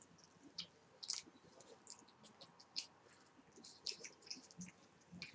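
Faint, irregular wet clicks of a Scottish fold cat licking and smacking vitamin paste squeezed into its mouth from an ampoule.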